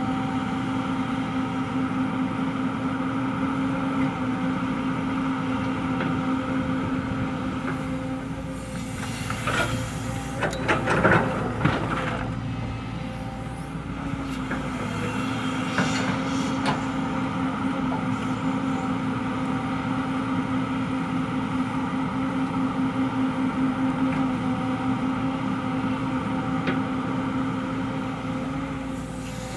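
JCB crawler excavator's diesel engine running steadily under working load, with a burst of scraping and clunks about ten seconds in as the bucket digs into rocky soil. The engine note dips briefly just after and then picks up again, with a few more knocks a little later.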